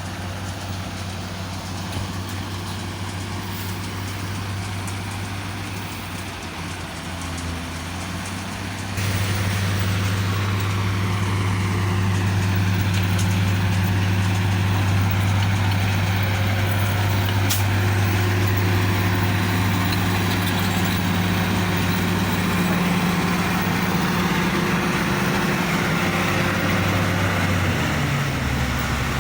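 Komatsu D65E bulldozer's diesel engine running with a steady drone, which becomes suddenly louder about nine seconds in and drops in pitch near the end.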